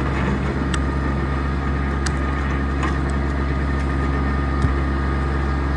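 RK25 compact tractor's diesel engine running steadily, driving a rear-mounted 5-foot rotary tiller through fresh ground, with a few short sharp ticks over the drone.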